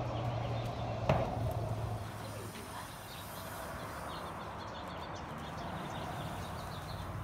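Small birds chirping over a steady low background rumble, with a horse's hooves falling softly on arena sand. A single sharp knock comes about a second in.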